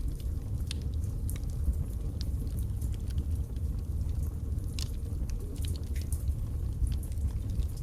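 Wood fire burning in a fireplace: a steady low rumble of the flames with irregular sharp crackles and pops from the logs, a dozen or so scattered through.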